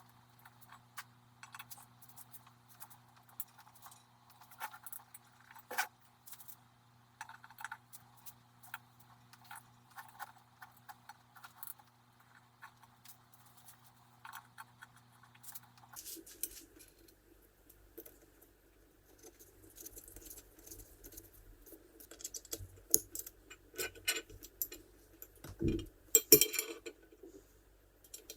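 Scattered light metallic clicks and clinks of small metal parts being handled, with a few louder knocks near the end. A steady low hum under the first half changes abruptly partway through.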